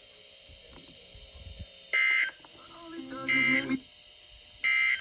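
Three short raspy data bursts from a weather radio, a little over a second apart: the SAME digital end-of-message code that closes an Emergency Alert System / NOAA Weather Radio warning. The middle burst has a lower tone laid over it.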